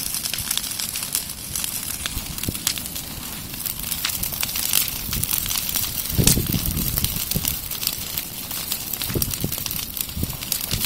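Large bonfire burning, crackling with many sharp pops and snaps over a steady rush of noise, with a deeper swell about six seconds in.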